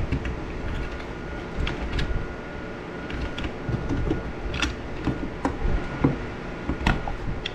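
Scattered clicks and light knocks of hand work with tools and electrical parts, irregular, a few sharper ones past the middle, over a faint steady tone.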